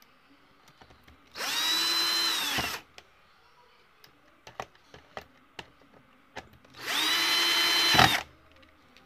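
Electric screwdriver driving screws back into the bottom panel of a USB audio interface. It makes two runs of about a second and a half each, the motor whine rising as it spins up and dropping as it stops, with small handling clicks between the runs.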